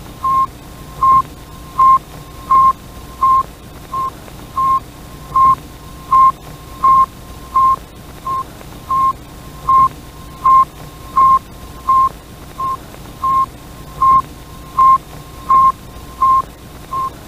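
Sputnik 1's radio beacon signal: a steady train of short, single-pitched beeps, about three every two seconds, over a faint hiss.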